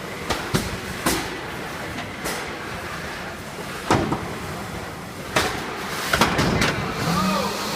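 Combat robots fighting in an arena: a series of sharp hits and bangs, about seven over several seconds, over a steady background rumble. Near the end a tone rises and falls.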